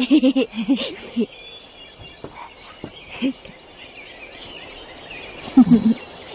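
Birds chirping faintly in the background, with a few short sounds of a child's voice in the first second and again shortly before the end.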